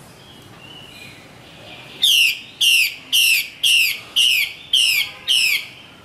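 Female Chinese hwamei calling in a cage. After a few faint whistled notes, it gives a string of seven loud, sharp calls about two seconds in, each a quick downward-sweeping note, about two a second.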